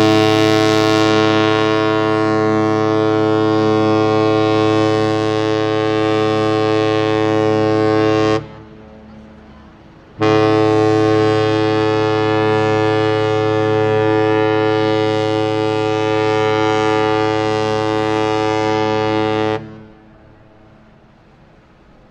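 A ship's horn sounding two long, steady, loud blasts. The first is already going at the start and stops about eight seconds in. The second follows about two seconds later and lasts about nine seconds.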